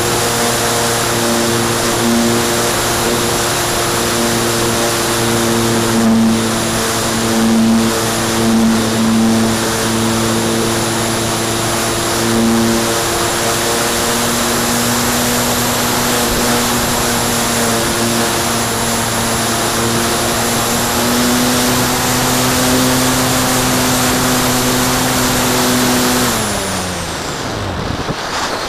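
Electric motor and spinning propeller of a Graupner Cherry II electric glider running steadily under power, with air rushing over the wing-mounted microphone. Near the end the motor is cut and its whine falls in pitch and dies away as the propeller winds down, leaving the wind rush.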